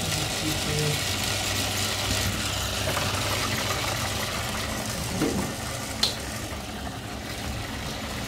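Bottle-deposit reverse vending machine running with a steady mechanical hum as it takes in a returned bottle, with a single sharp click about six seconds in.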